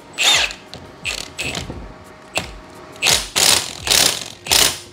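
Hand ratchet clicking in a series of short bursts, about seven strokes, as a 12 mm hex socket tightens the nut on a transmission gear shaft.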